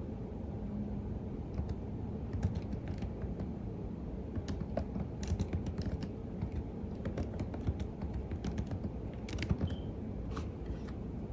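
Typing on a computer keyboard: irregular key clicks, some louder than others, over a steady low background rumble.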